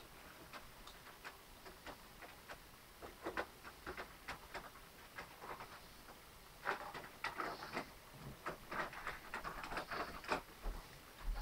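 Model railway train running on the track: an irregular light clicking, sparse at first, then denser and louder about two-thirds of the way through.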